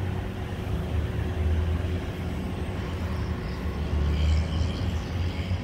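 Road traffic: a steady low rumble with a faint steady hum through the first few seconds.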